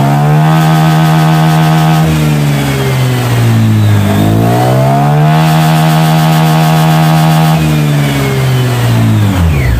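Honda Click 150i scooter's single-cylinder engine revved twice on the stand, rear wheel and belt drive spinning free: each time the pitch climbs, holds steady for a few seconds, then falls back. This is a test run of the freshly cleaned CVT.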